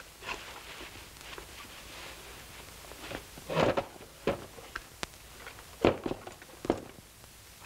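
Irregular footsteps and knocks as a man walks to a table, sits down on a wooden chair and takes off his shoes. A sharp click comes about five seconds in, and the loudest thud about six seconds in.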